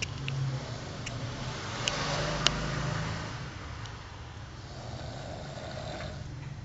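A sleeping person snoring: three drawn-out, rattling snores roughly two and a half seconds apart, with a sharp click about halfway through.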